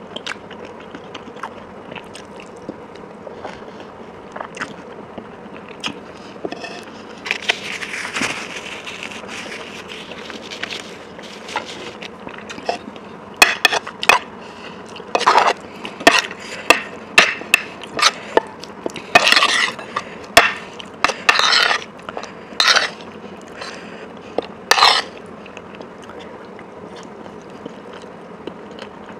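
Close-miked eating sounds: light clicks and scrapes of cutlery on a plate, then, about halfway in, a run of loud, sharp crunchy chewing and biting sounds.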